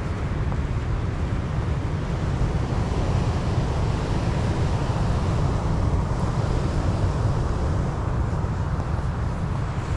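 Wind rumbling on the microphone over the steady wash of ocean surf breaking on a rocky shore.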